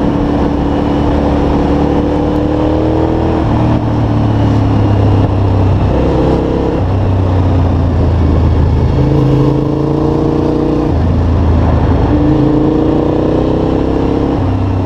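Cagiva Raptor's V-twin engine on the move, heard from the rider's seat: it pulls up through the revs, drops back about four seconds in and again near eleven seconds as the throttle closes, then pulls again, with wind noise throughout. The sound cuts off abruptly at the end.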